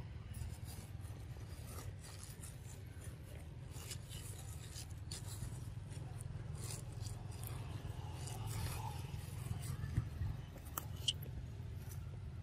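Quiet outdoor ambience: a steady low rumble with scattered small clicks and rustles, and two sharper ticks near the end.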